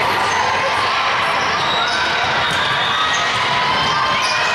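Steady hubbub of a busy indoor volleyball hall: many voices at once, with scattered sharp volleyball hits and bounces on the courts.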